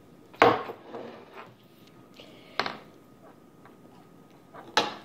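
Three sharp clinks and knocks of a spoon against a bowl and of the bowl on a wooden tabletop, about two seconds apart, the first the loudest.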